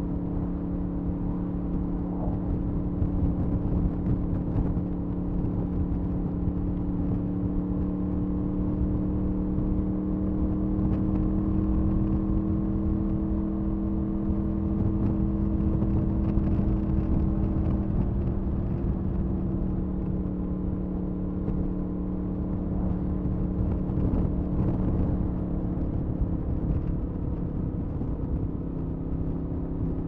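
2007 Honda VFR800A Interceptor's V4 engine and exhaust under way at a fairly steady speed, holding an even note that eases slightly lower in the second half, with wind rumble on the microphone.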